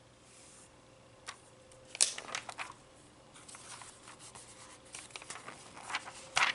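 Magazine pages being turned by hand: paper rustling and flapping, with a sharp page snap about two seconds in and another near the end as two pages are flipped over.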